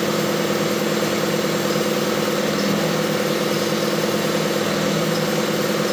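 Crane truck's engine running steadily, driving the crane's hydraulics as it hoists a load, a low even hum of several steady tones.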